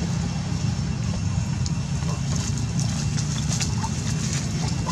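Steady low rumble with scattered light crackles of dry leaf litter as young macaques move about on it, and a faint short squeak or two near the end.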